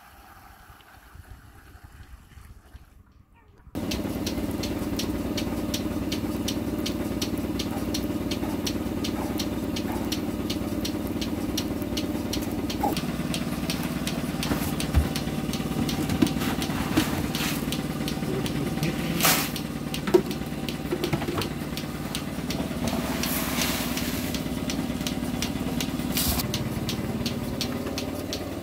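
A small motor running steadily with a fine, rapid ticking, after a few quieter seconds at the start.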